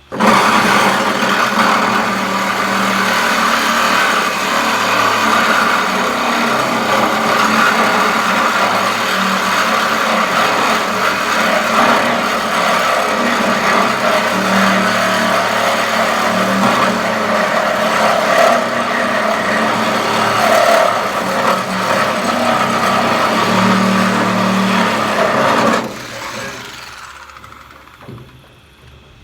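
A power cutting tool running continuously as it cuts through the sheet steel of a Ford Ranger pickup bed, loud and steady, then stopping and winding down over a couple of seconds near the end.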